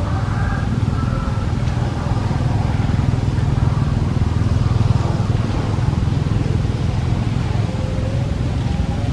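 Steady low rumble of a motor vehicle engine running nearby, growing slightly louder around the middle.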